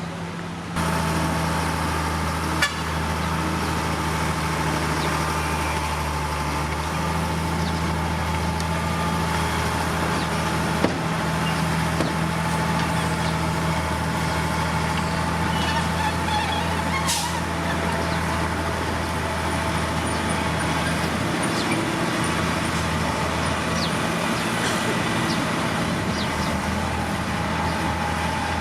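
Heavy diesel earthmoving machinery running steadily, cutting in suddenly about a second in, with a few sharp metallic knocks along the way.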